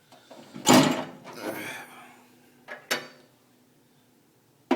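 An iPod being handled as it is pulled out of its case: a loud rubbing clatter about a second in, a softer scrape after it, then a couple of sharp clicks and a last sharp click at the end.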